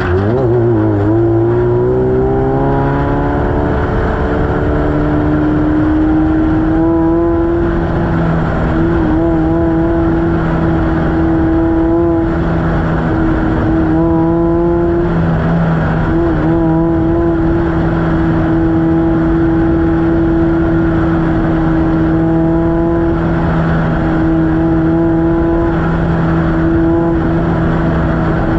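Off-road race car engine running hard at high revs. The pitch climbs over the first few seconds as it accelerates, then holds a steady high note, broken by a few brief dips in revs.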